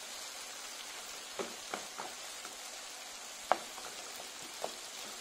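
Ojja sauce of shrimp, tomato and green pepper sizzling steadily in a frying pan as a utensil stirs it. The utensil knocks against the pan in a few sharp clicks, the loudest about three and a half seconds in.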